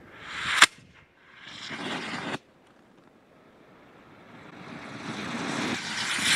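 Homemade solid rocket motor with ammonium perchlorate propellant sputtering: three surges of rushing hiss, each swelling and then cutting off abruptly, the first and last ending in a sharp crack. The motor is failing to hold a steady burn.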